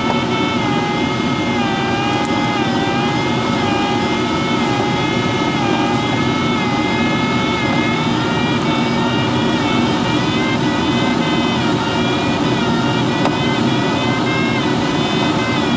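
Steady rush of airflow over the Schleicher ASW-15b sailplane's canopy in flight, heard inside the cockpit, with a continuous whistling tone that wavers slowly in pitch.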